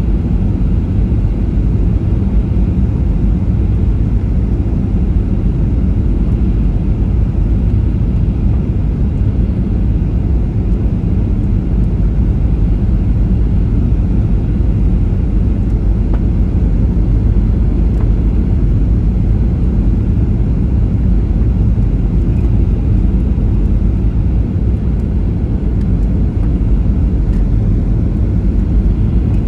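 Steady low rumble of a Boeing 737-800's CFM56 engines and the airflow, heard inside the cabin as the jet descends on approach.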